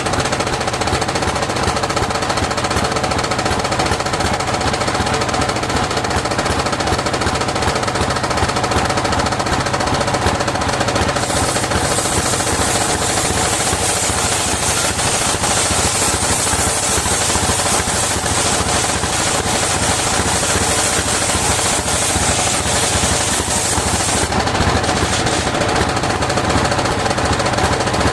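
Engine driving a sawmill's circular saw, running with a rapid, even knocking beat; it is the engine the owner describes as starting to weaken. From about eleven seconds in until about twenty-four seconds a high hiss joins in over the engine, then drops away.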